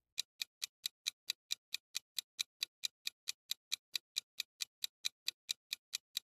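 Countdown-timer ticking sound effect: quick, even clock-like ticks, about four or five a second, with nothing else between them.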